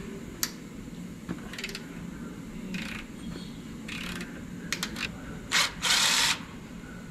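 A hand ratchet clicking in short strokes as a bolt is worked loose on the truck's underside. Near the end a small cordless power ratchet runs twice, the second time for about half a second.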